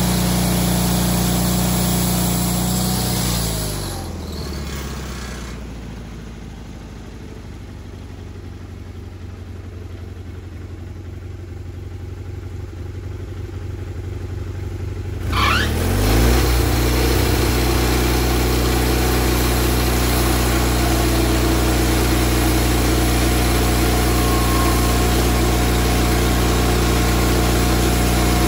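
Wood-Mizer LT40HD portable bandsaw mill's engine running at speed, throttling down to idle about three to five seconds in. It idles for about ten seconds, then revs back up quickly and runs steadily at speed.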